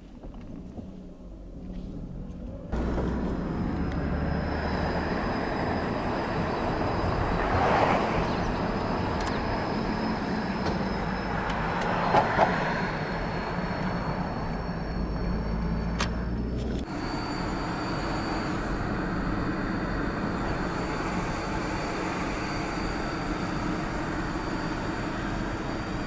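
Lexus IS300 driving slowly, heard from inside the cabin: steady engine and road noise that gets louder about three seconds in and swells briefly twice, with a faint high steady whine over it.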